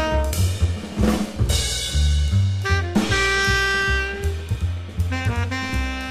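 Jazz music: a saxophone playing held and quick-changing notes over a drum kit and a low bass line.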